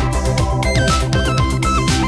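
Upbeat electronic background music with a steady beat and a bright stepping melody.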